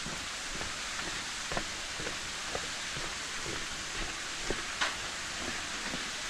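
Waterfall water falling in drops and streams onto rock and a pool below: a steady hiss with scattered separate drips and splashes, a louder splash about five seconds in.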